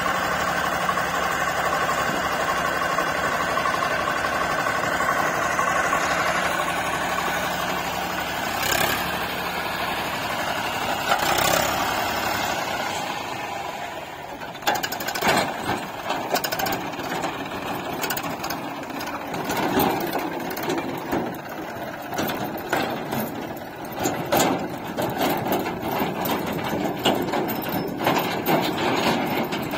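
Heavy diesel engine running steadily. About 13 seconds in the level dips, and irregular knocks and clatter then set in over the running engine.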